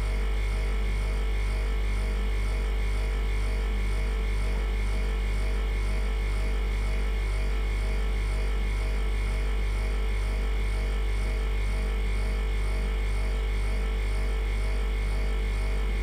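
Old freezer humming steadily: a deep, constant hum with a regular pulsing throb just above it and faint steady higher tones over the top.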